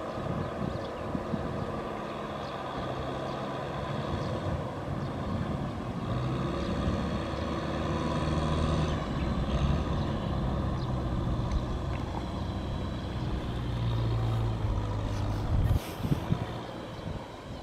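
Tractor's diesel engine working hard in deep mud and water, its pitch rising and falling as it strains under load. A few sharp knocks come near the end.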